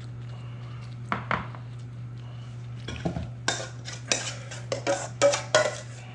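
A metal utensil knocking, scraping and clinking against a bowl, scattered at first and then in a quick run near the end, as filling is stirred or scooped. A steady low hum runs underneath.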